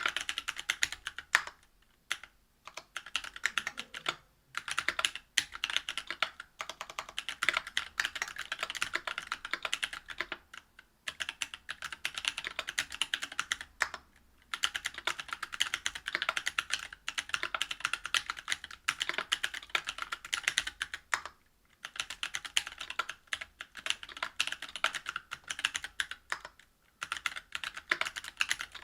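Typing on a Whale 75 mechanical keyboard with stock Cannonkeys Lilac Tactile 65g switches, a brass plate and GMK keycaps. The keystrokes come fast and continuous, broken by short pauses every few seconds.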